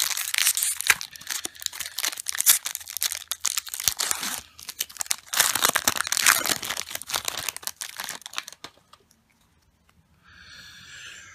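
Foil booster pack wrapper of a Magic: The Gathering card pack being torn open and crumpled by hand: a dense crackling and tearing for about eight seconds, then it stops.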